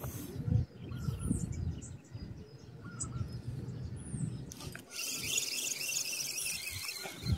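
Handling noise from a spinning rod and reel in a small wooden canoe: low knocks and rubbing throughout, with a few short high bird chirps. For the last two seconds or so a dense hiss comes in over it.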